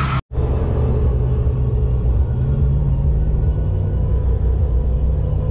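Steady low rumble of road and engine noise inside a pickup truck's cab driving on the highway, after a split-second gap in the sound near the start.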